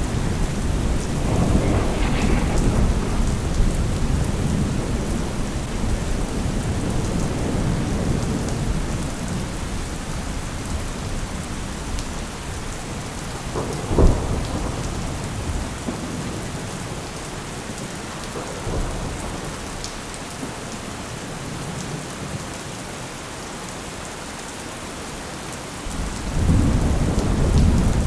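Steady rain with rolling thunder: a deep rumble that fades away over the first ten seconds or so, a sharp crack about halfway through, and another rumble building near the end.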